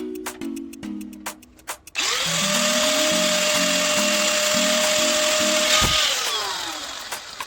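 A power tool's motor spins up quickly about two seconds in and runs at a steady pitch for about four seconds. It is then switched off and winds down with a falling whine.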